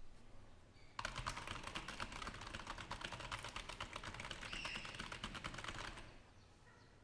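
Computer keyboard being typed on fast, a rapid stream of key clicks for about five seconds, starting about a second in and stopping about a second before the end, picked up by an Audio-Technica AT2020 condenser microphone in an untreated, reverberant room.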